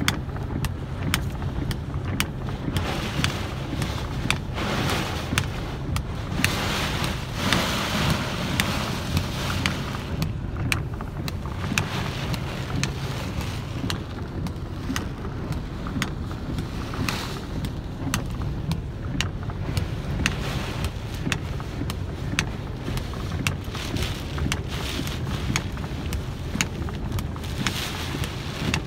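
Heavy rainstorm heard from a vehicle in traffic: a steady low engine hum under a constant hiss of rain, with many sharp ticks of drops striking the glass.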